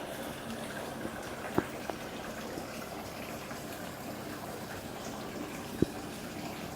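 Steady splash of running water in an indoor fish pond, with two sharp clicks, one about a second and a half in and a louder one near the end.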